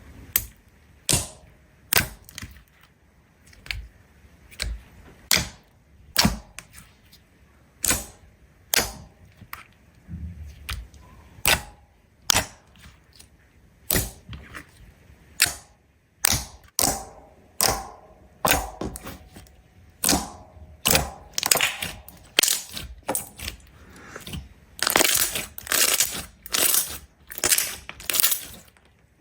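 Slime being handled, making a series of sharp crackling pops about once a second that grow denser and louder near the end.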